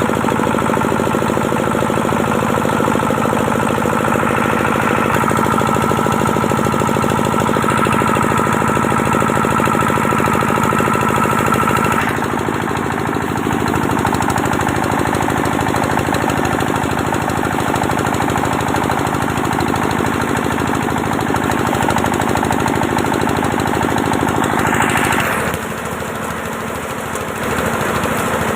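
Small engine running steadily with a rapid, even pulsing beat. Its note shifts about twelve seconds in, and near the end it briefly rises, then drops for a couple of seconds before picking up again.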